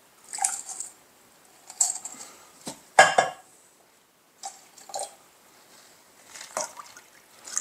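Cleaning solution tipped from one plastic jug into another: a few short spells of liquid pouring and dripping, with light knocks and clinks of the jugs. The loudest knock comes about three seconds in.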